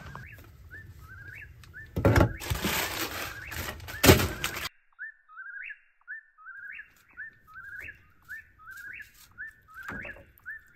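Eastern whip-poor-will singing its 'whip-poor-will' call over and over, each phrase ending on a rising note. About two seconds in, a loud rush of noise with two sharp thumps, about two seconds apart, briefly covers it.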